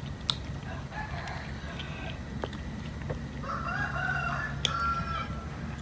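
A rooster crows in the background about three and a half seconds in, over a kitten crunching dry kibble, heard as a few sharp clicks.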